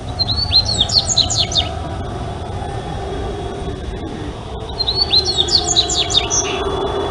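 Dubois's seedeater singing two short song phrases a few seconds apart. Each opens with a few down-slurred whistles and runs into a quick series of sharp, sweeping notes, over a steady low rumble.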